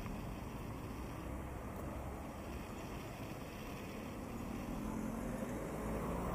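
Street traffic heard while walking: a passing vehicle's engine running under a steady noisy background, growing louder in the last couple of seconds as it approaches.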